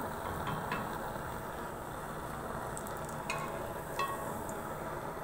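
Chana dal tikkis frying in oil in a pan, a steady sizzle, with a few light clinks of a utensil against the pan.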